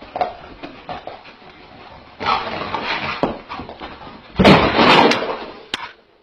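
A dog making rough, noisy sounds while it rolls and dashes about on a carpeted floor, with scattered clicks. The sound is loudest in a burst about four and a half seconds in.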